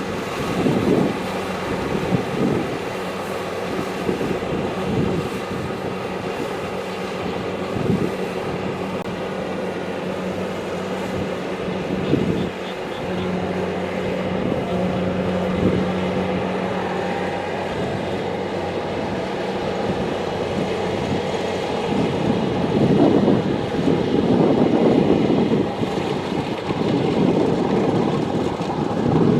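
Kubota DC-70 Plus combine harvester running steadily as it works, with a constant engine hum and occasional knocks. The sound grows louder and rougher for several seconds near the end.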